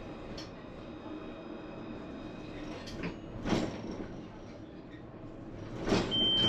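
Tram in motion: a steady rumble with faint high whining tones. There is a clunk about three and a half seconds in, and a louder clunk near the end with a short high beep.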